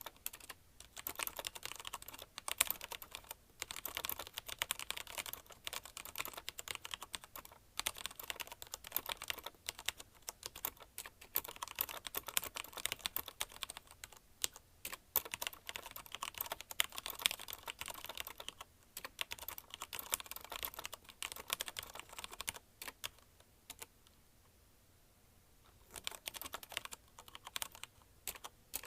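Fast typing on a CM Storm Quick Fire TK mechanical keyboard with linear Cherry MX Red switches: a dense stream of key clicks and bottoming-out clacks, with brief gaps and a pause of about two seconds near the end.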